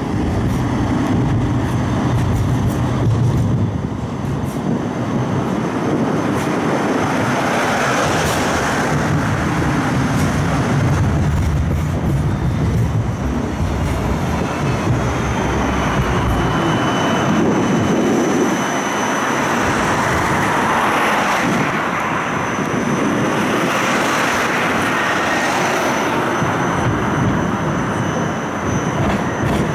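Siemens Combino low-floor tram running steadily: a continuous rumble of wheels on rail and running gear heard inside the car, with a faint high-pitched tone now and then.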